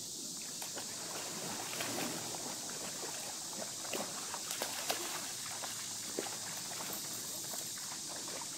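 A Siberian husky and a German shepherd wading and splashing in a shallow creek, with a run of light splashes and sloshes in the middle, over the steady trickle of flowing water.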